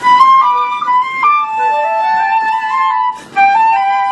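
Live instrumental duo playing a slow, gentle classical-style piece: a high, held melody with a second line moving in steps below it, and a short break about three seconds in.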